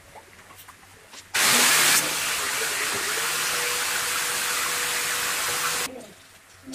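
Steady, loud hiss of pressurised gas or spray from a nozzle, starting about a second and a half in and cutting off sharply about four and a half seconds later. It is strongest in its first half second, with a faint steady tone underneath.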